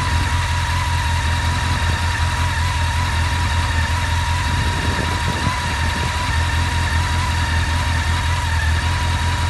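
Honda CBR600F4i inline-four engine idling steadily, with a thin, constant hum riding over the rumble. The owner puts the hum down to a bearing on the clutch side that still hums after the clutch rebuild.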